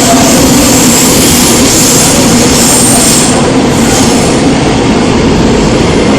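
Seoul Metro Line 2 old 2000-series resistor-controlled electric train running, heard from inside the car: a loud, steady rumble of wheels and motors. A high hiss over it dies away about four seconds in.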